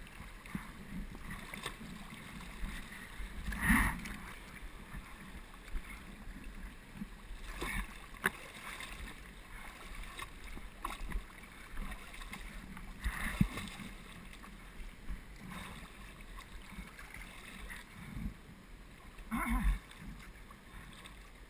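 Old Town Appalachian canoe drifting, heard from the microphone lying inside its hull: faint water sounds along the hull with occasional knocks against it.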